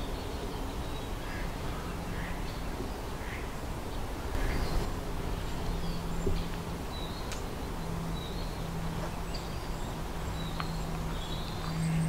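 Woodland ambience of wild birds chirping and calling in short, scattered notes. A steady low hum comes in about two seconds in and grows louder near the end.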